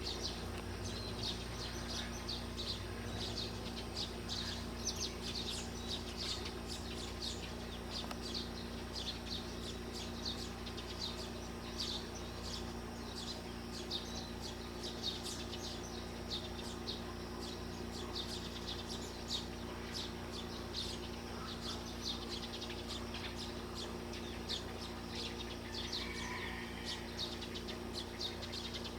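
Birds chirping continuously, many short high calls overlapping, over a steady low hum.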